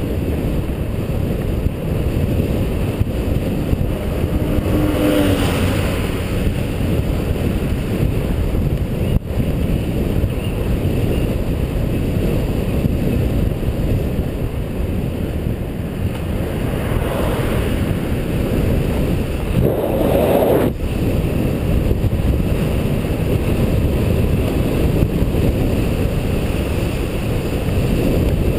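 Steady low rumble of wind and road noise on the microphone of an action camera mounted on a vehicle driving along a road. A brief louder swell comes about twenty seconds in.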